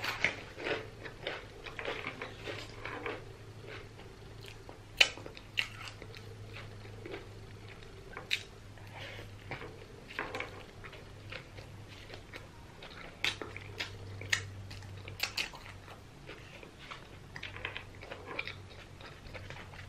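A person chewing and biting food close to the microphone, with wet chewing and irregular sharp crunches throughout, over a low steady hum.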